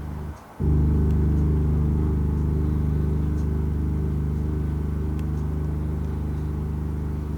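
Low, steady computer-generated drone made from the points of a nested-circle curve, fed through mid/side equations into the left and right channels. It cuts out briefly about half a second in, comes back louder, then slowly gets quieter.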